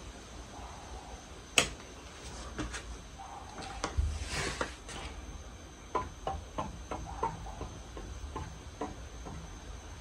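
Casablanca Spirit of Saturn ceiling fan running with a steady low hum, under scattered sharp clicks: one loud click under two seconds in, a short hiss about four seconds in, then a run of quicker clicks.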